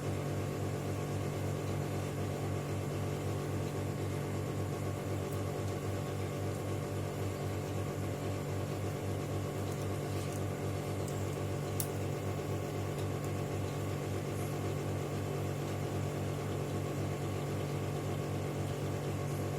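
A steady low machine hum with a fast flutter, unchanging throughout.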